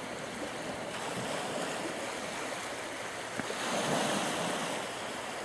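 Small waves breaking and washing in, with a swell of surf about three and a half seconds in; a steady rush of water noise with some wind on the microphone.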